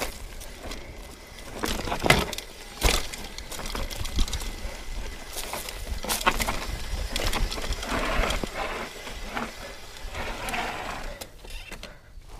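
Mountain bike rattling down a rough dirt trail: irregular knocks and clatter from the bike over bumps, over a low rumble of tyres on dirt. It goes quieter near the end.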